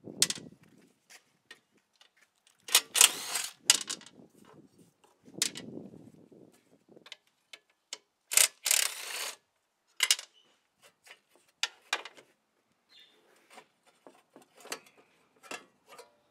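Cordless drill with a socket spinning out the bolts that hold a lawn mower engine's recoil starter housing, in several short bursts, with small clicks and clatter of the bolts and housing being handled.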